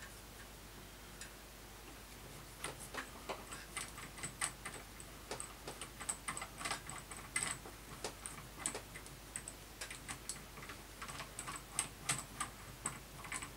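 Irregular light clicks and taps of metal parts handled by hand while a drill-spindle assembly is taken apart and its tight threads are worked loose. The clicks start a couple of seconds in and come a few a second.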